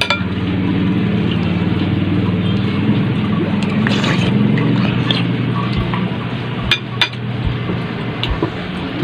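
A spoon clinking a few times against a soup bowl while someone eats noodle soup, over a steady low hum.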